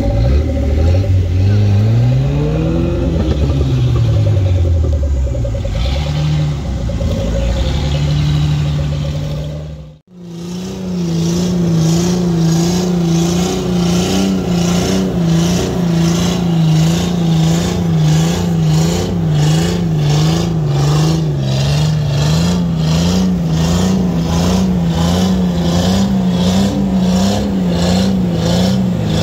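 Off-road 4x4 engine revving up and down under load on a muddy climb. After an abrupt break about ten seconds in, it holds a steady, slightly wavering note with a regular pulsing of just under two beats a second.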